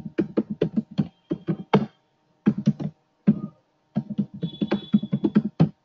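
Typing on a computer keyboard: quick runs of keystroke clicks with brief pauses between them.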